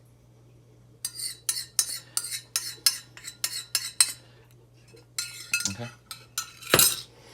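Metal spoon clinking and scraping against a dish, in a run of sharp taps about three a second, then a few more, the loudest near the end, as liver pâté is spooned into a container. A faint steady hum runs underneath.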